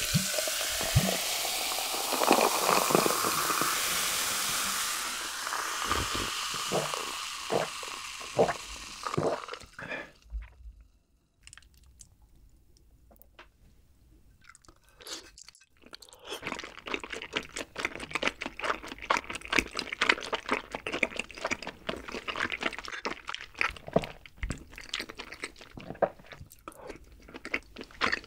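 Coca-Cola poured from a bottle over ice into a glass jar, the pour rising in pitch as the jar fills, then fizzing and crackling on the ice and fading. About halfway through, close-miked chewing begins: wet, clicky mouth sounds of eating.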